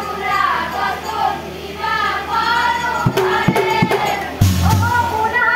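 Assamese Nagara Naam devotional singing: a woman's lead voice with a chorus of young women and girls. About three seconds in, a few drum beats land, and just after them a louder drum hit with a clash of brass cymbals.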